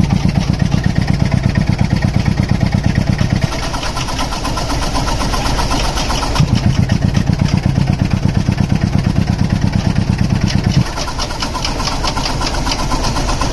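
Compressor running with a fast, even pulsing beat that turns heavier and deeper twice: for the first few seconds and again from about six to eleven seconds in.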